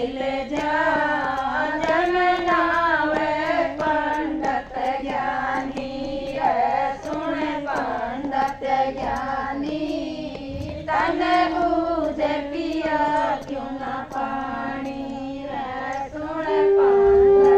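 A group of women singing a devotional bhajan together, unaccompanied voices rising and falling in a melody. Near the end a loud, steady blown note starts and holds over the singing.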